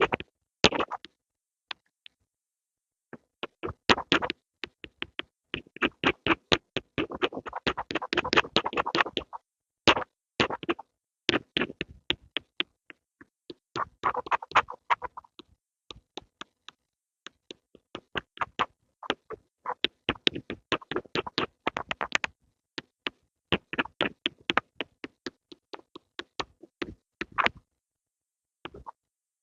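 Pencils tapping and scratching in quick, irregular runs of clicks and scrapes, broken by short silent pauses.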